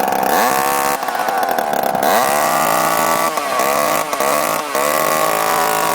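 A two-stroke chainsaw engine driving a blender runs at high revs throughout. Its pitch dips briefly and climbs back several times.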